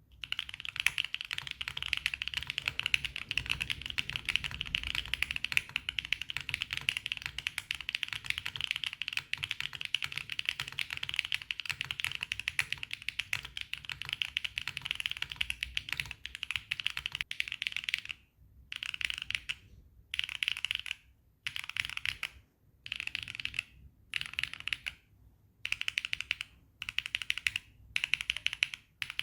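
Typing on a Neo80 mechanical keyboard with Gateron Jupiter Banana tactile switches mounted on a polycarbonate plate with no foam, under Swagkeys keycaps. Fast continuous keystrokes for about eighteen seconds, then short bursts of keystrokes with brief pauses between them.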